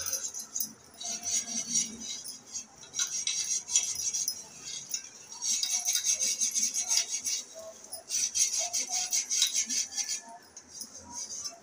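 A gas stove's pan support being scrubbed with a scouring pad in three spells of quick back-and-forth strokes, with short pauses between them. Bangles on the wrists clink along with the strokes.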